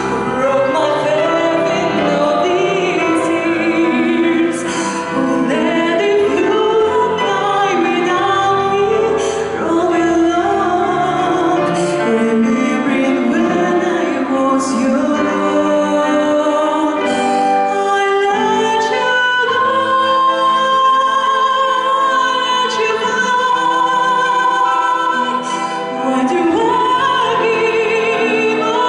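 A woman singing into a microphone with a grand piano accompanying her, holding long notes with vibrato.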